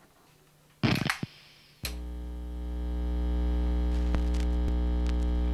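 Record on a turntable: a short scratchy noise about a second in and a click just before two seconds, then a steady drone with many overtones that swells up over a second or so and holds.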